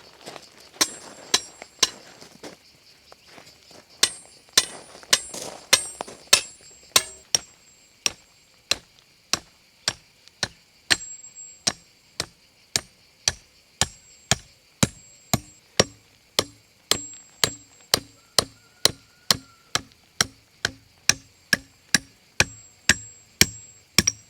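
Hammer blows, a few spaced out at first and then a steady run of about two a second, some with a high ringing after the strike, as parts of a ground-mounted solar panel frame are fixed in place.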